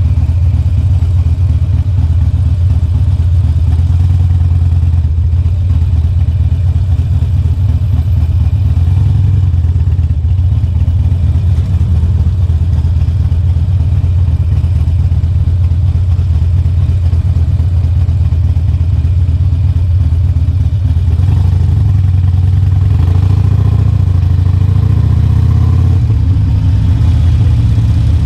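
Harley-Davidson Sportster Forty-Eight's V-twin running through a Two Brothers Racing 2-into-1 exhaust: a steady, loud, low exhaust note. Over the last several seconds the pitch shifts and rises as the revs change.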